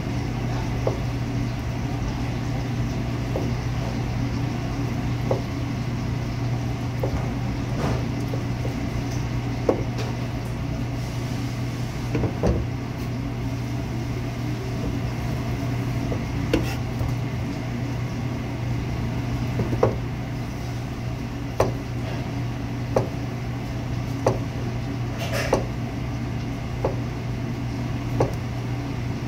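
Knife strokes through a pork loin clicking down onto the cutting board, about one every second or so, over a steady low hum of kitchen machinery.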